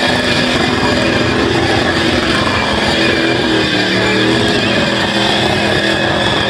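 Car engine revving hard and held at high revs over a dense rushing noise.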